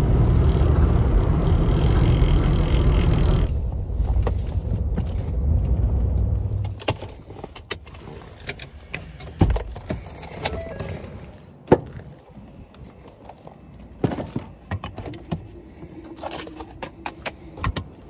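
Road noise inside a moving pickup truck's cabin for the first few seconds. Then it drops to a quieter stretch of scattered clicks and rattles: keys jangling and the truck's door being unlatched and opened, with one sharp clack about halfway through.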